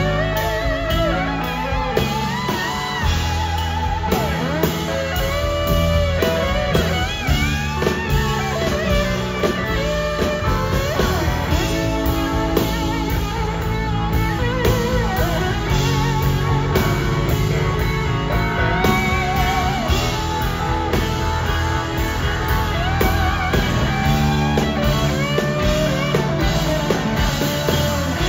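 Live rock band playing an instrumental passage: a lead electric guitar plays bent, wavering notes over bass and a steady drum beat.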